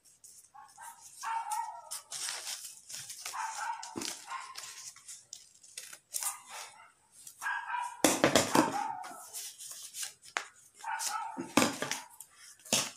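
Scissors cutting through folded paper in a string of irregular snips.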